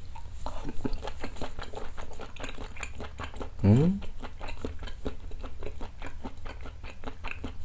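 Close-mic chewing of a piece of boiled beef tendon dipped in wasabi-soy sauce: wet, irregular mouth clicks several times a second. A brief rising 'mm' hum comes about three and a half seconds in.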